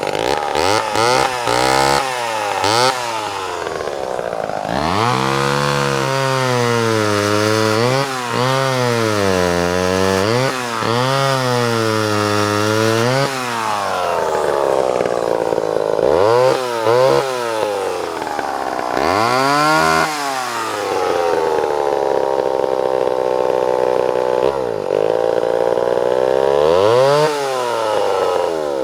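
Homelite XL-12 two-stroke chainsaw running, its engine revved up and down over and over. Near the end it is held steady for several seconds before one more rev.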